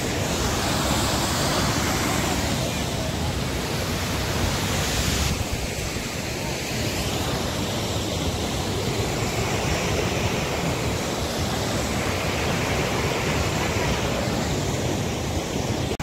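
Steady rushing of a waterfall, water pouring over rock ledges close by.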